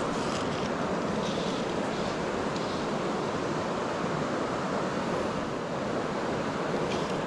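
Steady rush of a clear, stony river flowing over rocks, even and unbroken.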